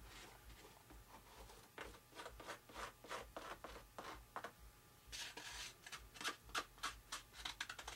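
Faint scraping and rubbing strokes of a balsa-wood scraper spreading epoxy over fibre tape on the wing, speeding up into a quick run of short strokes over the last few seconds.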